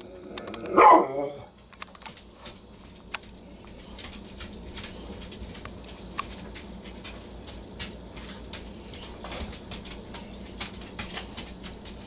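A dog barks once about a second in. Then a pileated woodpecker pecks and probes at a fallen log, making irregular sharp taps, sometimes several close together.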